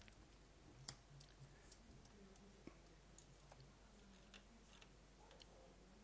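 Near silence with a few faint, scattered computer mouse clicks, the clearest about a second in.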